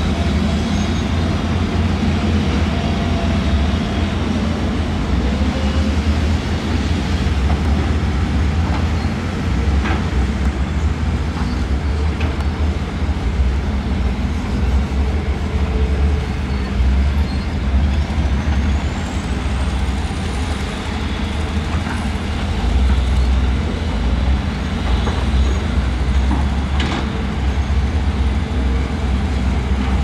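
Heavy diesel excavator engines running steadily under load with a deep drone, with a couple of sharp metallic knocks from the digging.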